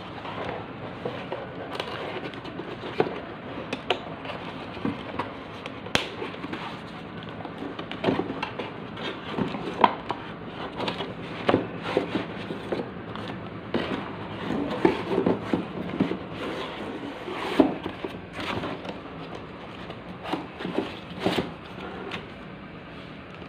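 Cardboard box inserts and plastic wrapping being handled: continuous rustling and scraping with many irregular sharp taps and clicks.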